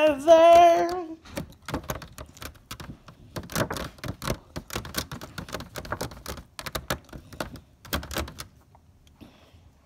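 Salad being stirred in a takeout container with a utensil to mix the dressing in: a fast, uneven run of clicks and taps that stops shortly before the end.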